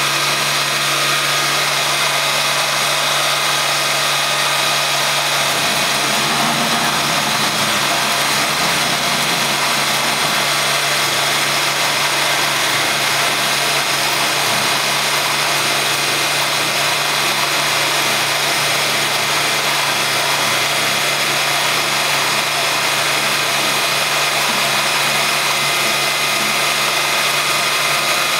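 Sieg X3 benchtop CNC milling machine running steadily, its end mill cutting into a block of wood, with a steady motor whine over the noise of the cut.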